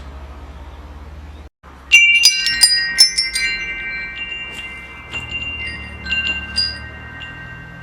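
Metal wind chimes: a cluster of bright strikes about two seconds in, their tones ringing on and slowly fading, then a few lighter strikes later. Underneath is a low steady hum, broken by a brief cut in the audio just before the first strikes.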